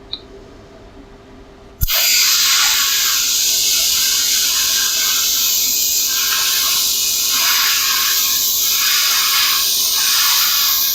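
AHP AlphaTIG 200x TIG welding arc striking with a sharp crack about two seconds in, then hissing steadily with a wavering edge as the torch is walked along the joint.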